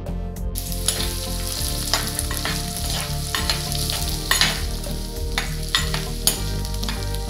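Sliced onions frying in hot oil, sizzling, while a metal spoon stirs them and clicks and scrapes against the pot. The sizzle starts about half a second in.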